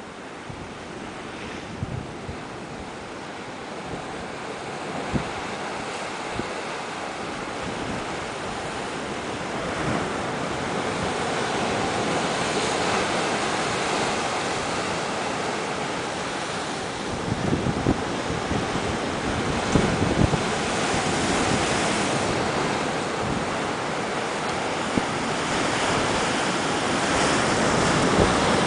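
Sea surf breaking and churning white among shoreline rocks, an even rushing wash that grows steadily louder, with wind on the microphone.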